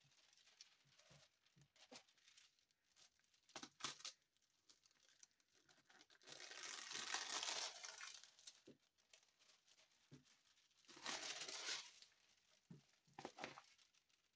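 Clear plastic cover film on a diamond painting canvas crinkling as hands lift and smooth it. There are two longer rustles around the middle and near the end, with a few short crackles in between.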